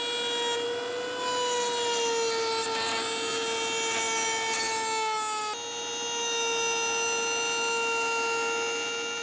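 Table-mounted wood router running at high speed with a steady whine while an oak frame piece is fed past a new bit to cut a groove for a plywood panel. The pitch sags slightly during the first half of the pass and steps back up about halfway through.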